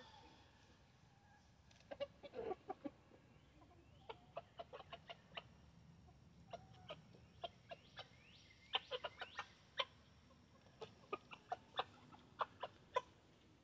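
Backyard chickens clucking quietly: a run of short, separate clucks at an irregular pace, starting about two seconds in and bunching up twice.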